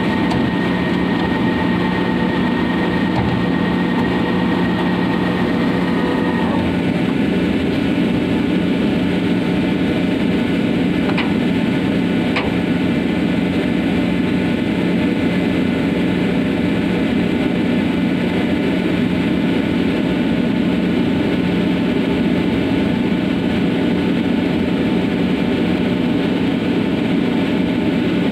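Ship's engine and deck machinery running with a loud, steady low drone. A higher whine, the davit winch lowering the small boat, runs over it and stops about six seconds in, and a couple of faint clicks follow.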